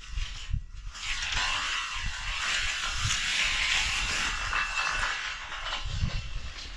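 Handheld power tool running steadily, a hissing whir that starts about a second in and stops near the end.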